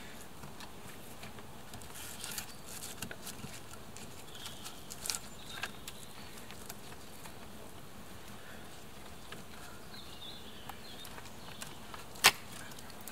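Short round log pieces being handled and set into a stacked wooden wall: scattered light wooden knocks and clicks, with one sharp knock about twelve seconds in.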